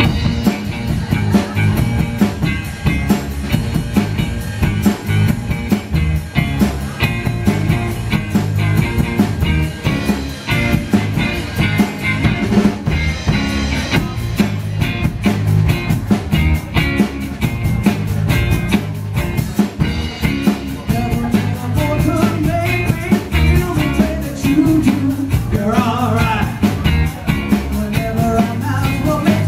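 A live rock band playing a song: electric guitar, bass guitar and drum kit with a steady beat, and a woman singing. The song kicks in right at the start.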